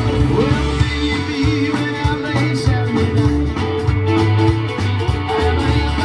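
Live rock band playing: electric guitars over bass and drums, with a steady beat.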